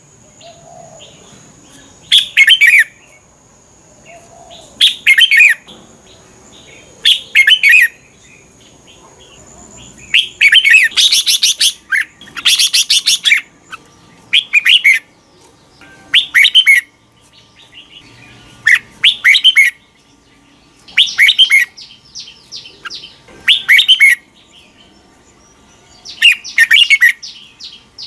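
Red-whiskered bulbul singing: short warbled phrases repeated about every two to three seconds, with a longer run of song about ten seconds in.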